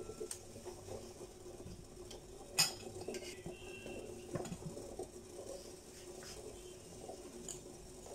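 Metal spoon clinking and scraping against a stainless steel pot as dumplings are put into the milk and stirred: a scatter of light clinks, the sharpest about two and a half seconds in, over a low steady hum.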